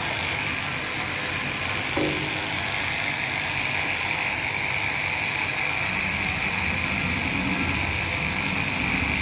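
Steady hiss from a steaming, near-boiling dye vat, with a low machine hum growing stronger about six seconds in.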